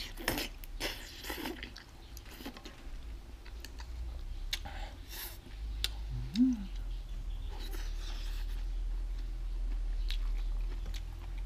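A person slurping up a mouthful of noodles, then chewing, with scattered small clicks of chopsticks. A brief rising-and-falling hum comes about six and a half seconds in.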